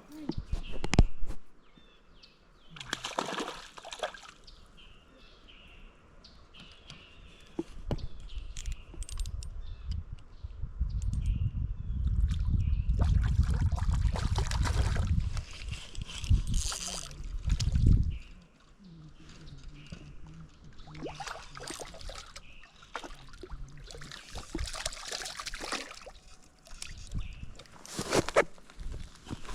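Creek water sloshing and splashing in irregular bursts, with a long low rumble through the middle.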